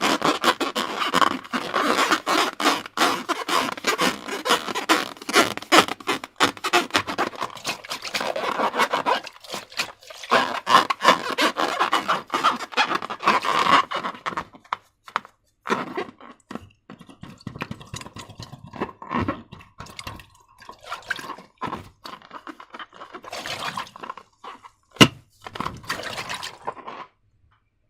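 Slime being worked by hand, giving dense sticky crackling and scraping that thins out about halfway through. One sharp snap comes near the end.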